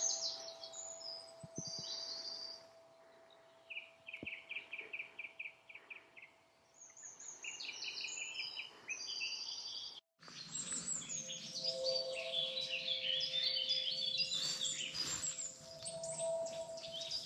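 Woodland birdsong: birds singing short phrases in turn, one giving a fast run of repeated notes. The sound cuts out for an instant about ten seconds in, then comes back as a busier chorus of overlapping songs.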